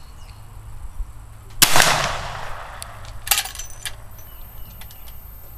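A single rifle shot from a little Sharps rifle firing .38 Special reloads, about a second and a half in, with a short echoing tail. A short burst of clicks follows about a second and a half later.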